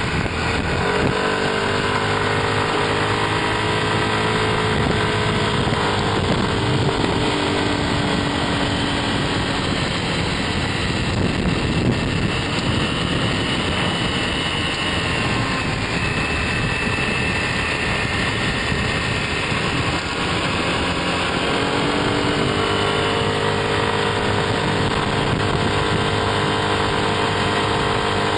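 Motor scooter engine running at riding speed, its pitch rising and falling with the throttle, over steady wind and road noise. Through the middle the engine tone sinks under the rush of noise, then comes back strongly near the end.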